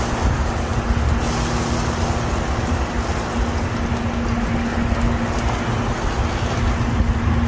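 Steady outdoor noise: a fluctuating low rumble like wind buffeting the microphone, with a steady low hum underneath.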